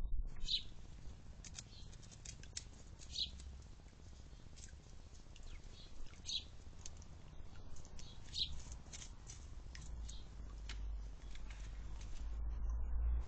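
Garden birds chirping, one short high chirp every two or three seconds, with many faint ticks between them and a low rumble that builds near the end.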